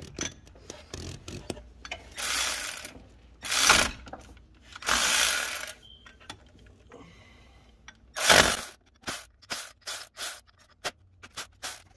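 Hand ratchet wrench loosening the 10 mm bolts that hold the pulley on a water pump, the belt still on to keep the pulley from turning. There are several short bursts of ratcheting, then a string of separate clicks, about four a second, in the last few seconds.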